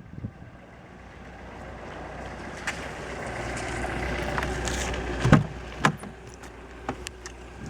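Mercedes-Benz W211 running, its steady noise growing louder over the first few seconds, with several sharp knocks at uneven intervals, loudest about five and six seconds in: the knocking the owner is complaining of.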